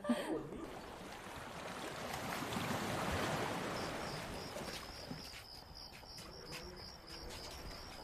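Quiet night ambience: a soft rushing swell that rises and fades, then a high, thin chirp repeated steadily about four times a second from a little before halfway on.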